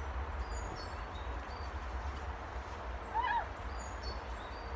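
Small birds singing in the trees, thin high chirps and whistles, over a steady low rumble of wind on the microphone. About three seconds in comes one short, louder call.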